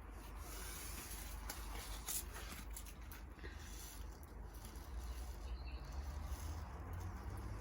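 Faint rustling and light pattering of hands sowing carrot seeds, with a few small clicks early on and a low rumble underneath.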